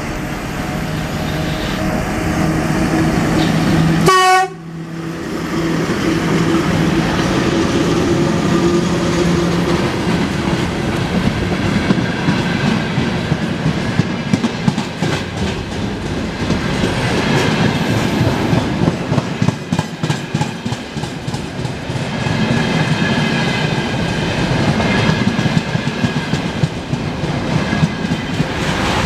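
VL10U electric locomotive and its freight train rolling past. A steady low hum runs for the first ten seconds, with a sharp thump about four seconds in. After that comes the rhythmic clacking of the wagons' wheels over the rail joints.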